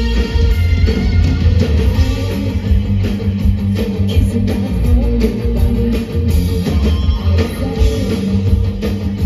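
Live rock band playing loud, with electric guitar to the fore over drums.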